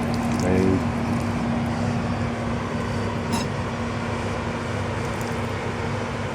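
Steady mechanical hum: a constant low tone under an even rushing noise.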